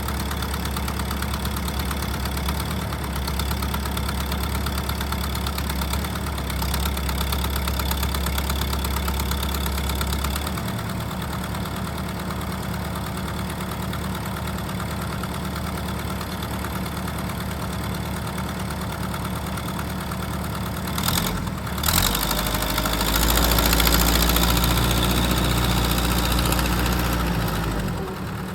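Kubota M59 tractor's diesel engine running steadily. Its note shifts about ten seconds in. About three-quarters of the way through there are a couple of sharp knocks, then it runs louder for several seconds before dropping back near the end.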